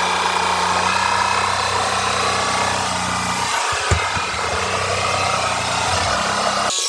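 Shark EVOPOWER SYSTEM iQ+ cordless stick vacuum running with its power head, sucking up cat hair: a steady rushing noise with a high whine, a brief knock about four seconds in, then the motor cuts off just before the end.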